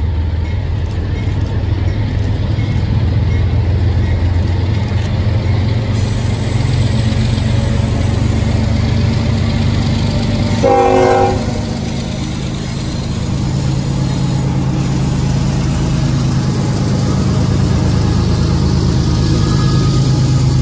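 Train running by with a steady heavy low rumble. One short locomotive horn blast, about a second long, comes about ten seconds in.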